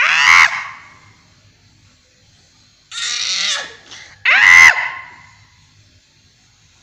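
A baby's loud, high-pitched squeals: one right at the start and one about four and a half seconds in that falls in pitch. A fainter, breathier squeal about three seconds in comes just before the second, which echoes it.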